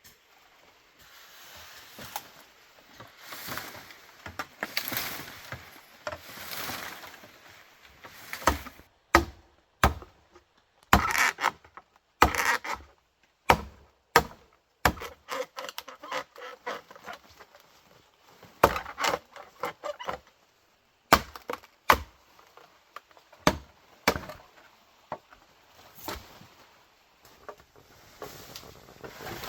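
Bamboo being chopped with a blade: irregular sharp strikes, roughly one every second or two, after several seconds of softer rasping at the start.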